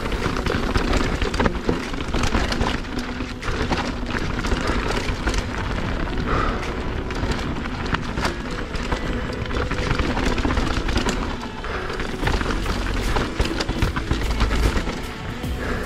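Radon Swoop 175 mountain bike rattling down a rocky trail: tyres crunching over loose stones and the bike clattering with many sharp knocks, with wind rumbling on the microphone.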